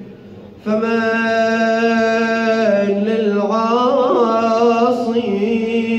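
A solo male voice chanting a supplication in the melodic style of a radood (Shia devotional reciter): after a short breath about half a second in, he holds one long note with a wavering ornament in the middle.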